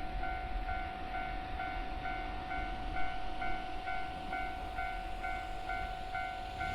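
Japanese level-crossing warning bell ringing in a steady electronic ding, about two strikes a second, over a low rumble.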